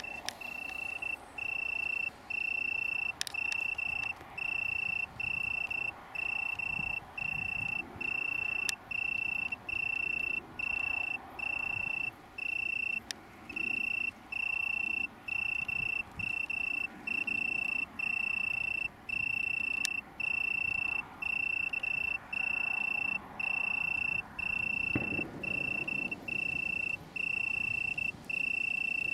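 Male Italian tree cricket (Oecanthus pellucens) singing: a clear, steady trill in even phrases of about half a second with short gaps, a little over one phrase a second. A few faint clicks fall between.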